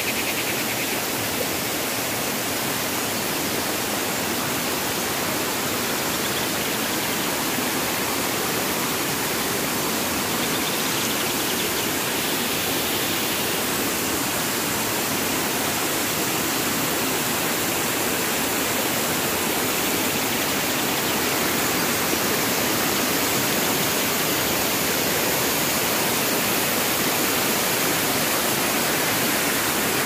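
Waterfall pouring over rocks into a shallow pool: a steady, even rush of falling water.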